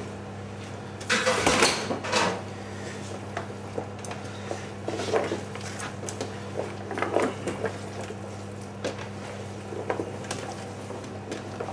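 Kitchen dishes and utensils clattering as they are handled: a burst of clatter about a second in, then a few lighter knocks, over a steady low hum.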